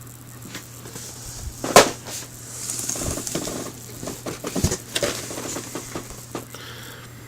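Handling noise from cardboard model-kit boxes being picked up and shuffled: scattered rustling with a sharp knock a couple of seconds in and a softer one a few seconds later.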